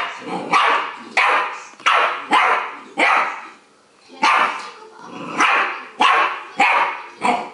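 Staffordshire Bull Terrier puppy play-barking over and over: about a dozen short, loud barks roughly every half second, with a brief pause a little before the middle.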